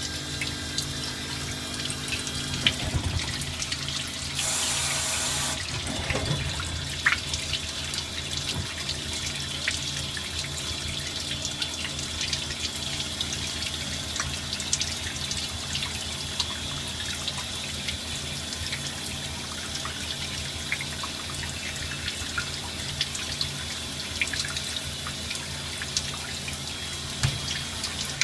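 Compound automatic lathe turning small-diameter parts: a steady splash of cutting coolant over a low machine hum, with scattered clicks. A brief hiss comes about four and a half seconds in.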